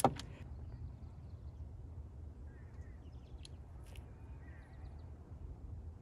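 A sharp click at the very start from a click-type torque wrench reaching its set torque on a diesel injection-pump delivery valve. After it comes a faint steady low rumble with a few faint bird calls.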